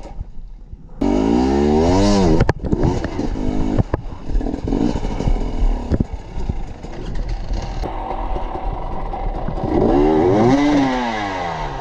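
Off-road motorcycle engines revving in bursts: a sharp rise in pitch about a second in and another rise and fall near the end, with uneven running and knocks and scrapes of the bikes on the rocky trail in between.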